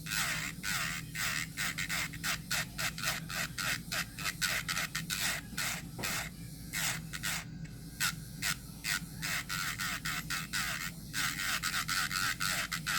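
ECBASKET 30,000 RPM electric nail drill running with a steady motor hum while its bit is worked across a nail in quick grinding strokes, about three a second, filing off gel polish.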